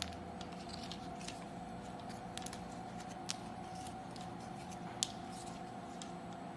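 Steady machine hum with a few steady tones, and a handful of sharp light clicks scattered through it, the loudest about five seconds in.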